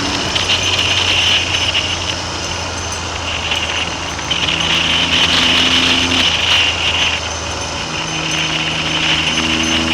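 Triumph Trident three-cylinder motorcycle engine running under way, heard from an onboard camera with heavy wind noise over the microphone. The engine note shifts a few times as the revs change.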